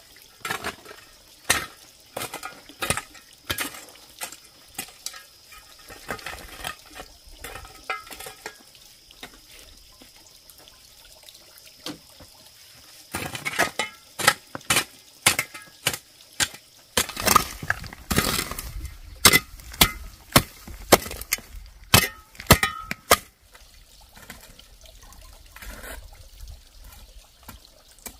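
A steel hoe chopping into stony soil and scraping it, in repeated sharp strikes with clinks of stone. The strikes come about one or two a second, pause for a few seconds midway, then come thick and fast for several seconds before easing off.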